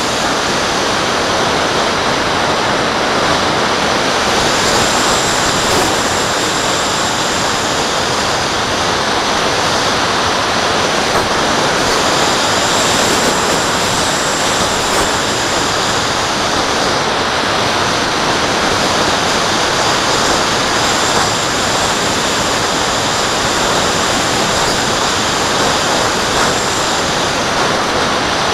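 Steady rushing of airflow over a Mobius action camera mounted on a radio-controlled glider in flight. A faint high whine comes and goes several times.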